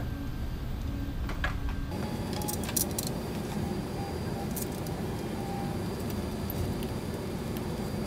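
Hands handling parts on a 3D printer's aluminium frame: a few light clicks and knocks over a steady background hum.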